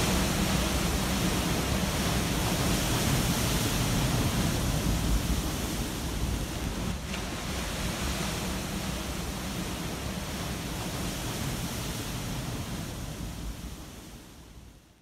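Ocean surf breaking against a seawall, a steady rush with wind buffeting the microphone, fading out near the end.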